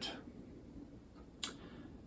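Quiet room tone with one short, sharp click about one and a half seconds in.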